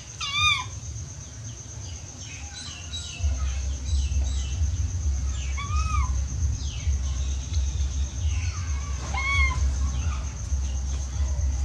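Baby macaque giving three short high-pitched coo calls, each rising then falling in pitch, one at the start, one about halfway and one near the end: an infant calling for its mother while it eats. A low rumble comes in a few seconds in and runs on underneath.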